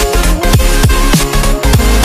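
Loud electronic background music with a fast beat, its deep bass notes sliding down in pitch two or three times a second.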